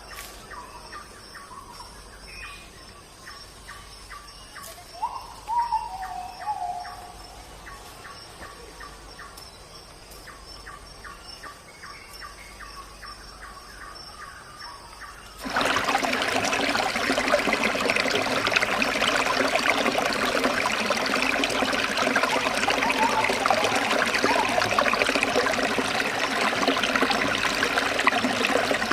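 Birds calling over a quiet forest background, with a louder call about five seconds in. About halfway through it cuts suddenly to the steady, much louder rush of running water.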